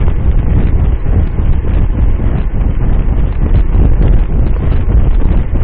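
Wind buffeting the microphone of a bike-mounted camera as the bike rides at about 28 mph: a loud, low, unsteady rumble.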